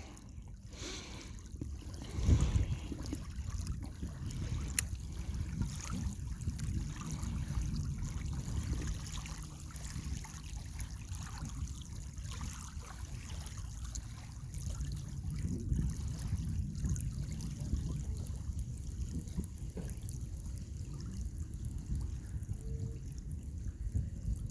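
Small lake waves lapping at the bank: a steady low rumbling wash with a louder splash about two seconds in.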